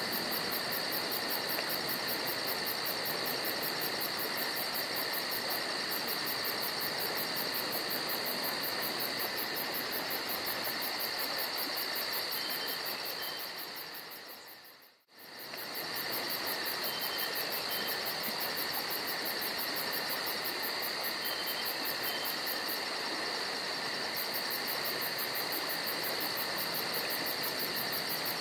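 Steady chorus of insects: a fast, even, high-pitched pulsing trill over a constant hiss, with a few steady high tones. About halfway through the whole sound fades out almost to nothing and then comes straight back.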